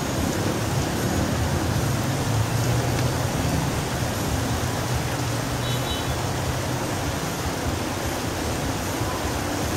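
Steady rain falling, an even hiss, with a low rumble of distant road traffic underneath.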